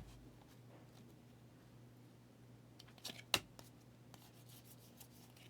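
Trading cards being handled: a short rustle and a sharp click about three seconds in, over a faint steady hum.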